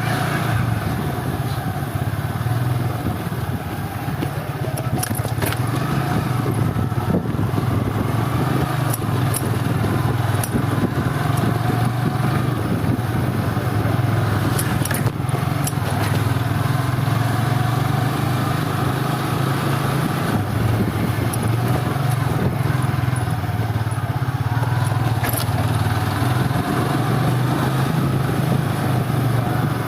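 A motor vehicle engine running steadily, a constant low rumble, with a few faint clicks.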